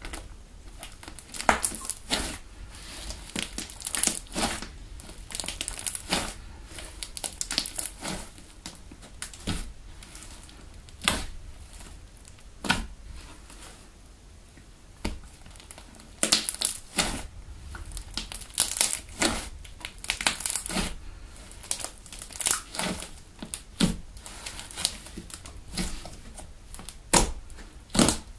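Pink foam slime made from PVA craft glue and hand foam being stretched, pulled and squeezed by hand, giving irregular clusters of sharp wet crackles and clicks.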